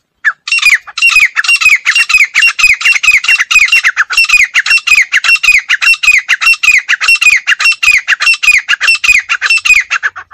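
Female grey francolin calling: a loud, fast run of harsh notes, each falling in pitch, about four or five a second, kept up for nearly ten seconds and stopping abruptly at the end.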